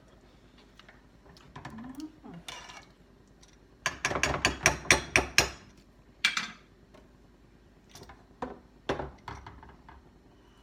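Rapid clicking of a gas stove burner's igniter, about ten clicks over a second and a half, followed by a few scattered knocks.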